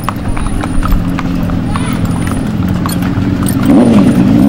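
Hooves of horses and mules clip-clopping on asphalt as a procession walks past, many overlapping steps, over a steady low hum.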